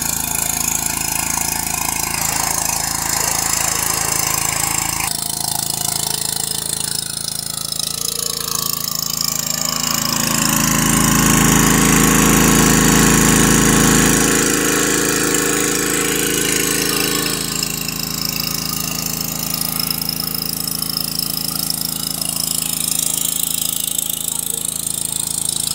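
Robin Subaru 6 hp EX single-cylinder petrol engine running steadily under load, driving a portable water pump that feeds a fire hose. It gets louder for a few seconds about halfway through.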